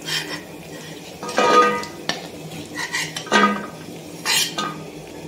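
A metal spatula scraping and clinking against a metal kadhai and a steel plate as roasted cashews and almonds are scooped out. There are about five separate strokes, the two loudest with a short metallic ring.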